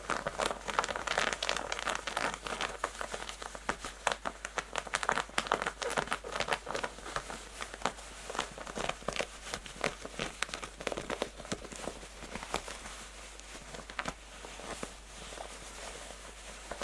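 Natural fingernails scratching textured denim jeans fabric in fast, hard strokes: a dense run of rough scratches that eases off and gets quieter a little after the middle, then comes back strongly near the end.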